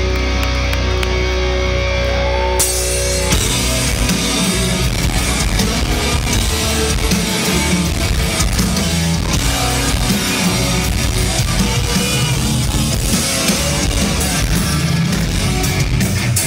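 Rock band playing live: a held chord over a low drone for the first few seconds, then guitars and a drum kit come in together about three seconds in and the band plays on at full volume.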